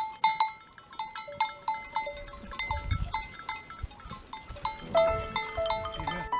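Bells on a herd of goats clanking irregularly as the goats move about, many short overlapping metallic rings.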